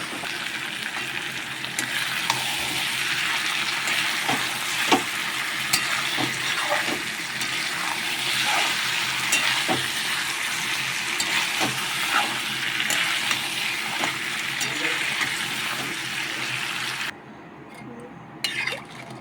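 Mutton and spice paste sizzling in a hot kadhai while a spatula stirs it, with frequent clicks and scrapes of the spatula on the pan. The sizzling cuts off suddenly near the end, leaving a couple of knocks.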